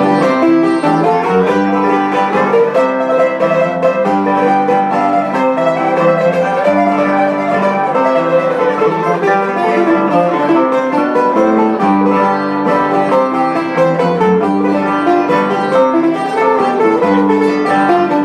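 Cuban punto guajiro instrumental interlude: acoustic guitars playing a bright plucked melody over a steady strummed accompaniment, with no singing.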